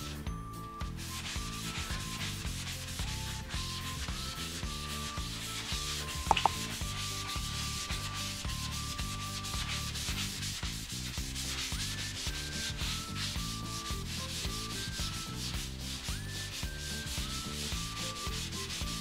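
Melamine sponge scrubbing the enamel of an old cast-iron bathtub: continuous rubbing strokes, with one sharp knock about six seconds in.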